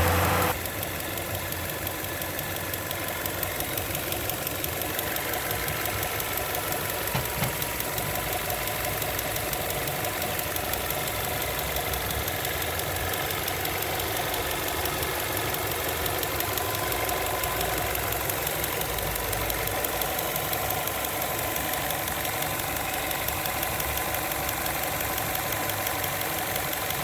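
2014 Skoda Octavia engine idling with a fast, steady ticking or knocking. The owner calls it a strange noise that comes especially when the AC is turned on. The overall level drops about half a second in, then holds steady.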